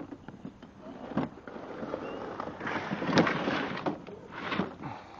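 Tools and gear being shifted about on a garage floor: a knock, then irregular scraping and clattering, loudest about three seconds in.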